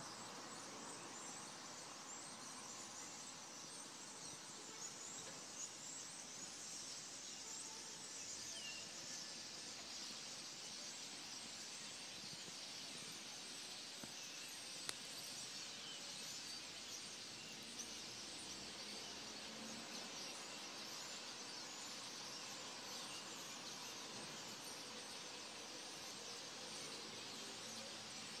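Outdoor dusk ambience: a steady faint hiss filled with many small chirps of birds and insects, with a single sharp tick about halfway through.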